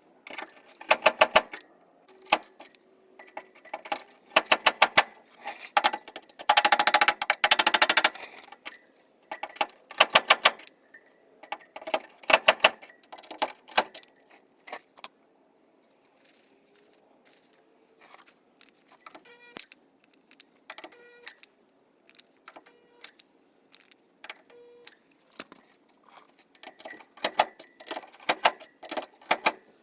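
Quick metallic tapping and clinking on sheet metal, in bursts of rapid strikes. The bursts are dense at first, turn sparse and faint midway, then pick up again near the end.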